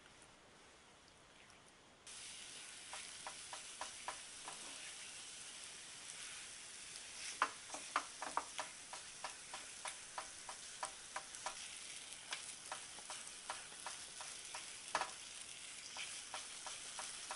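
Silicone spatula stirring and scraping snow skin batter in a nonstick frying pan as it cooks and thickens into dough, with a steady sizzling hiss and repeated sharp taps and scrapes of the spatula against the pan. The sound starts suddenly about two seconds in.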